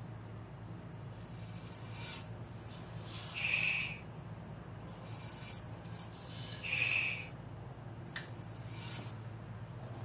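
Two short hissing rasps, each under a second and about three seconds apart, as an object is rubbed against a vibraphone's metal resonator tubes, over a faint steady low hum.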